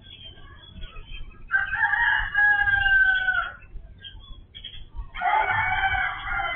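A rooster crowing twice, each crow about two seconds long, the second sliding slightly down in pitch.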